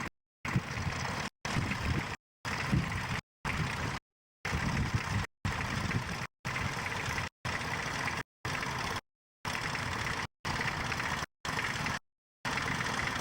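Tractor engine running steadily. The recording cuts out to dead silence for a split second about once a second.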